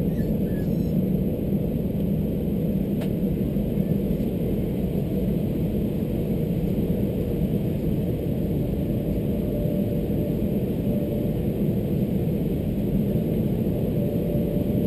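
Steady low rumble inside an Airbus A321 cabin as the airliner taxis slowly onto its stand with its engines at idle.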